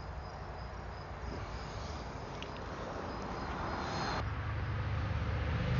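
Insects trilling high and steady over the hiss of road traffic. About four seconds in, the trill stops and a low rumble of passing traffic grows louder.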